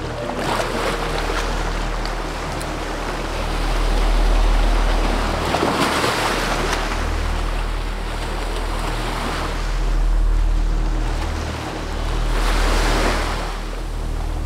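Small sea waves washing and breaking in the shallows, swelling louder every few seconds.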